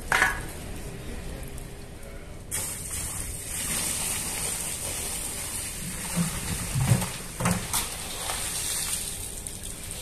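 Muddy water gushing and splashing out of a tipped metal collection drum onto the ground, starting a couple of seconds in and fading near the end, with a few dull knocks as the drum is handled.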